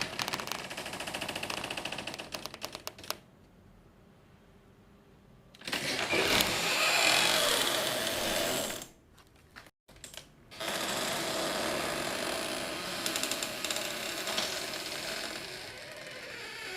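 Door sound effects: a door rattling and creaking in runs of rapid clicks, in separate takes broken by short pauses. The loudest, noisier take comes about six seconds in.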